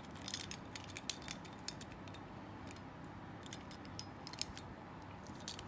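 Scattered light clicks and ticks of a Beyblade's plastic lift frame being handled and fitted onto its metal disc.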